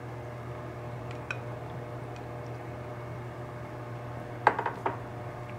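A spatula knocking against the rim of a wok: a few faint taps early on, then a quick run of four or five sharper clinks about four and a half seconds in. A steady low hum runs underneath.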